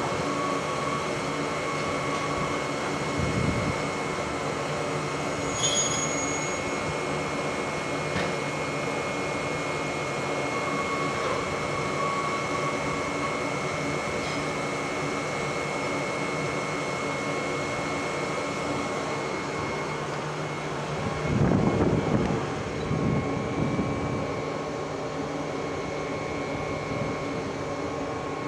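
Enshu Railway 30-series electric train standing with its equipment running, a steady hum made of several fixed tones. There is a brief knock about three seconds in, a click near six seconds, and a louder rumble about twenty-one seconds in.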